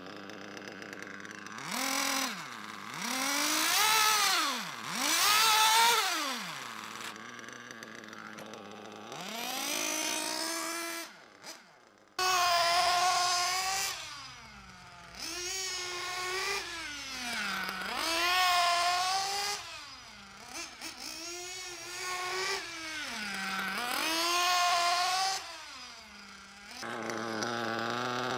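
Nitro RC car's small two-stroke glow engine running during break-in, revving up and falling back again and again as the throttle is rolled on and off. Near the end it holds a steadier note.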